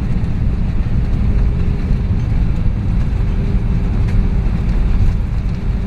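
Loud, steady low rumble inside the cabin of an Airbus A319 on its landing roll: jet engines and airframe noise as the plane rolls down the runway, with a faint steady whine.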